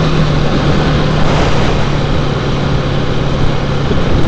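Single-cylinder trail motorcycle engine running steadily under load as the bike rides up a rutted dirt lane, with rough wind and ground noise over it.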